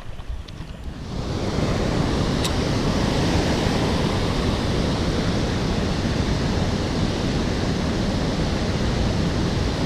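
Steady, even rushing noise, like running water or wind, coming in loud about a second in and holding unchanged.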